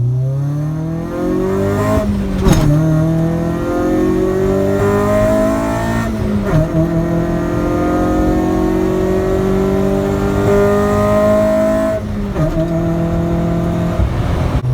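Honda EK9 Civic Type R's stock B16B four-cylinder accelerating hard through the gears. The engine note climbs, drops at an upshift about two and a half seconds in and again around six and a half seconds, climbs once more, then falls back to a steadier note near the end.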